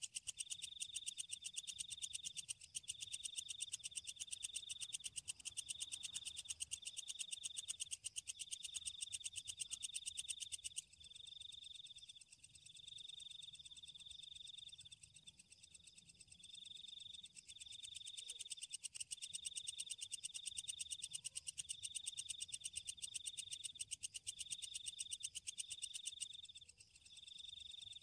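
Night chorus of calling insects: a fast, high, ticking buzz with a chirp pulsing in short bursts about once a second. The buzz weakens about eleven seconds in.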